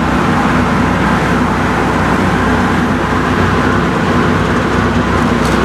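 Electric-driven industrial shredder with its blower and in-feed conveyor running empty: a loud, steady mechanical hum and rumble. Sharp crackles begin right at the end.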